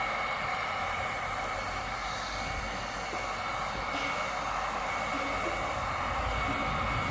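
Heat gun running steadily on its low setting: an even rush of blown air with a faint steady whine, heating old griptape to soften its glue.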